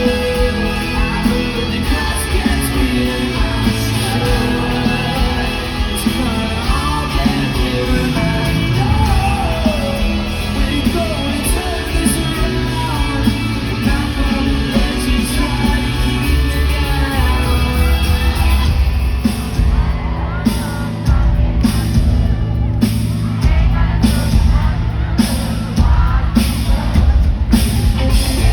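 Loud music with singing and shouted voices over a heavy bass. From about nineteen seconds in, the treble thins out while the bass drives on.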